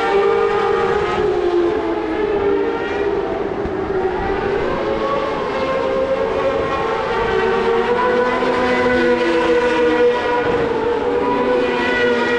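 Several racing motorcycle engines running at once, their overlapping pitches rising and falling.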